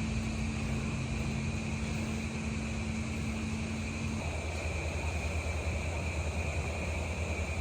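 Steady electric motor hum of a DeLaval rotating cow brush in a dairy barn, with one humming tone cutting out about four seconds in.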